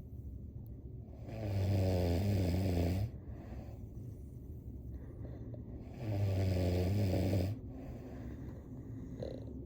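A sleeping person snoring: two low snores about a second and a half long each, one a second in and one about six seconds in, with quieter breathing between them.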